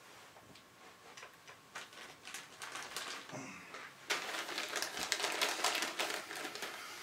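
Plastic cable ties and LED string cables being handled: scattered small clicks that come faster, then a louder stretch of rapid clicking and rustling from about four seconds in.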